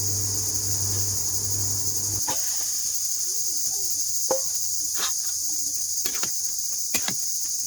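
Crickets trilling steadily in the background. A low hum stops about two seconds in, and after that there are scattered sharp clicks and knocks.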